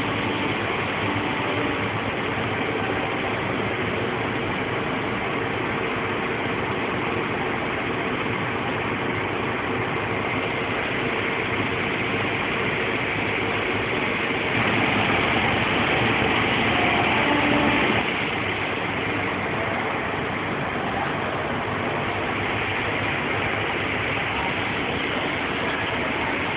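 Industrial laundry machinery in a mechanised bed roll washing plant running with a steady, dense mechanical noise. It gets louder for a few seconds a little past the middle, then drops back.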